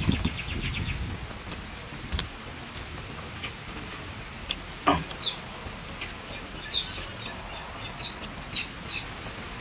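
Scattered short, high bird chirps over a quiet steady background, with a few sharp clicks; the loudest click comes about halfway through.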